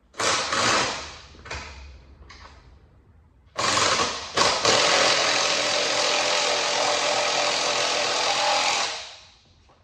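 Handheld power tool run in three short bursts, then held on steadily for about five seconds before it stops.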